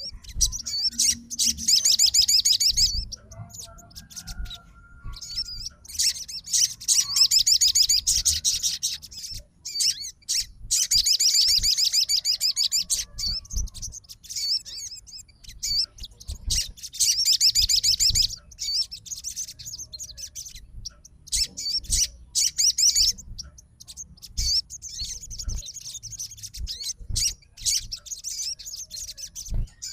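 Sogon songbird singing its agitated fighting song, a challenge call to a rival. Bursts of rapid, high-pitched trilling chatter, each a second or few long, come again and again with short pauses between them.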